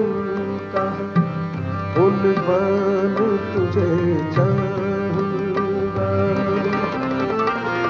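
Ghazal accompaniment: tabla keeping a steady beat under a melody line that slides between notes.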